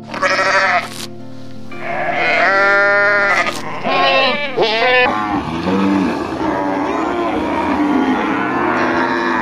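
Sheep bleating several times: a short call near the start, a long wavering bleat around two to three seconds in, and another around four seconds, over background music.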